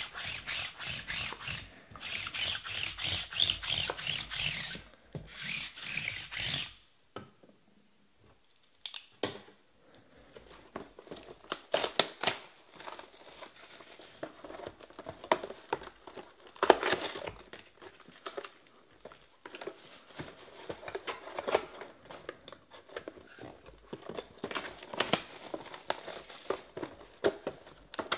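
Plastic shrink wrap being torn off and crumpled from sports-card hobby boxes, with the cardboard boxes handled and a lid flap opened. Fast scratchy rustling for the first six seconds or so, then, after a short lull, scattered crinkles and sharp clicks.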